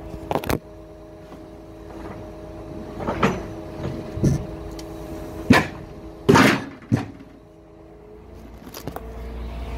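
A series of sharp knocks and thumps, about seven in all, over a steady hum that fades for a moment near the end.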